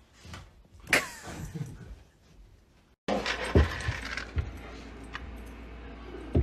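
A short high squeal falling in pitch about a second in; then, from about three seconds, dry pet kibble rattling and clattering in a scoop, with a few heavier knocks.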